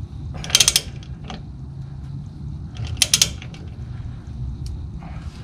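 Socket ratchet clicking in two quick bursts, about half a second in and again about three seconds in, as it is swung back between strokes while tightening a brake caliper's banjo bolt to crush its copper washers.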